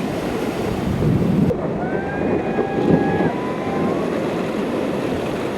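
Ocean surf and wind rushing over the microphone, a steady loud noise, with a few faint high held tones in the middle.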